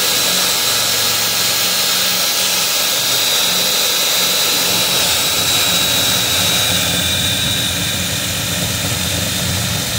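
Power drill with a step drill bit running steadily while boring out a rivet in a car door's sheet-metal inner panel: a steady high whine over a rough grinding noise, easing slightly in loudness near the end.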